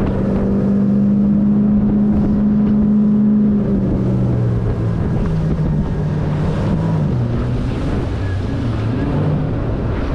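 Outboard motor of a small boat running under way, its engine note steady, then dropping in pitch about four seconds in and wavering after that, with wind rushing on the microphone.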